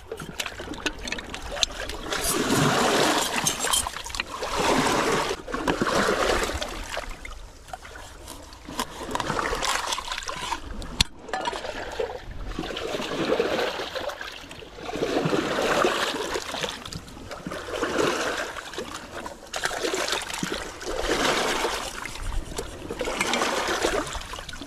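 Shallow seawater trickling and splashing over shore rocks, swelling and fading about every two to three seconds, with the splash of fish being rinsed in it.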